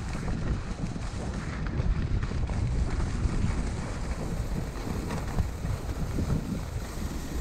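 Wind buffeting a GoPro Hero 6 microphone as a skier runs downhill, a steady low rumble that swells unevenly, with the skis hissing and scraping over packed snow.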